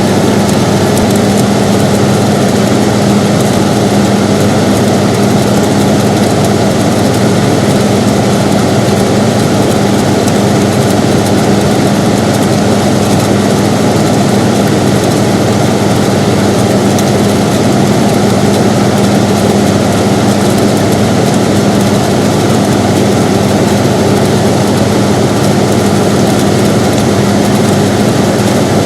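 Air conditioner running steadily: an even rush of noise with a low, constant hum.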